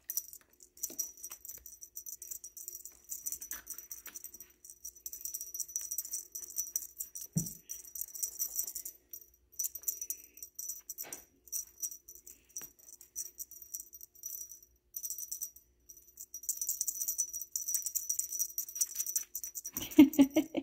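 Feather wand cat toy jingling and rattling in quick, irregular shakes as it is waved for a Bengal kitten to bat at. There is a soft thump about seven seconds in and a short, louder pitched sound near the end.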